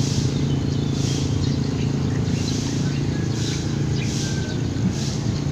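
A steady low motor hum, with faint short bird chirps over it.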